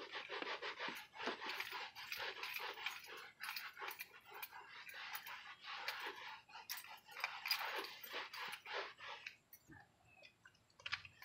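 A cloth rag wiping back and forth over a leather car seat, working dye and paint thinner into the leather in a quick run of rubbing strokes that stops near the end.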